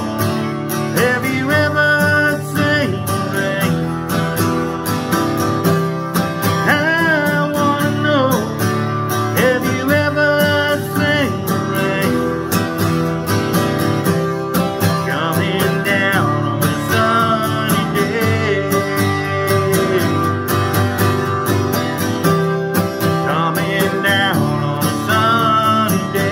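Strummed Taylor acoustic guitar with a man's singing voice over it: a solo vocal-and-guitar song.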